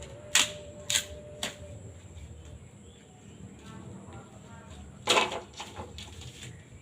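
Bamboo being split by hand: three sharp knocks about half a second apart, then a longer crack about five seconds in, followed by a few small clicks.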